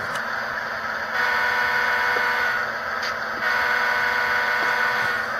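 The horn of an HO scale Intermountain ES44DC's DCC sound decoder blows twice, each blast about a second and a half long. Under it runs the decoder's steady diesel engine sound.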